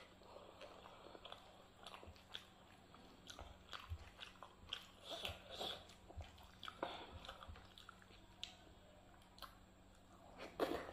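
Fingers squishing and mixing rice and dal on a plate, heard as soft, scattered wet clicks, along with chewing and lip-smacking. Near the end a handful goes into the mouth with a louder wet bite.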